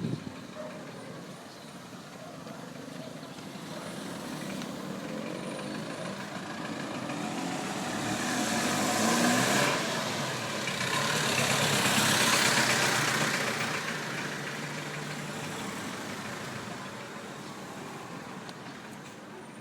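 A motor vehicle running, growing louder to a peak about nine seconds in and again around twelve seconds, then fading away.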